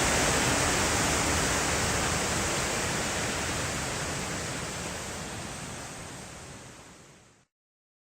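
Steady rush of a waterfall on Brasstown Creek, an even hiss of falling water that fades away over the last few seconds into silence.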